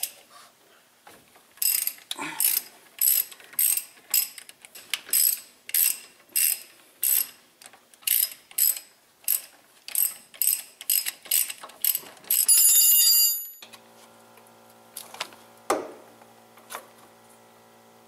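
Ratchet wrench clicking in short strokes, about two a second, as the 13 mm caliper bolts are backed out of a 2012 Ram 1500's front brake caliper. Near the end it spins in a quick unbroken run of clicks. Then the clicking stops, leaving a steady low hum with a few metal clinks.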